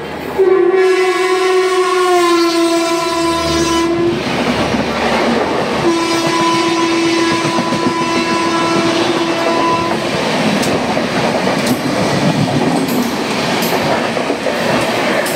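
Train horn sounding two long blasts of about four seconds each with a short gap between, over the steady rumble and wheel clatter of a passing train.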